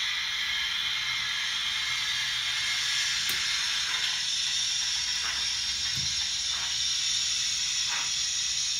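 Model steam locomotive's sound decoder playing a steady steam hiss through its small onboard speaker, with slow, soft chuffs about once a second starting around four seconds in as the loco pulls away at low speed.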